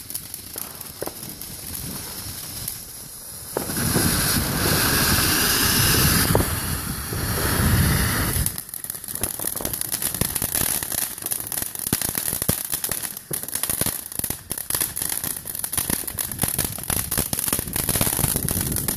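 Ground fountain fireworks spraying sparks: a loud hiss from about four to eight seconds in, then dense, rapid crackling for the rest.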